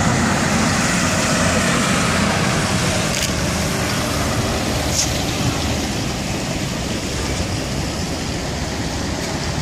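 Steady low rumble of a motor vehicle engine running, with a constant hum under an even wash of noise.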